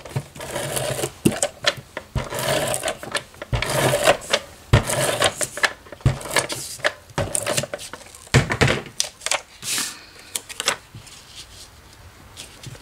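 Cardstock panels rustling and rubbing on a tabletop, with many irregular clicks and knocks from a plastic case being handled among them; the handling dies down about eleven seconds in.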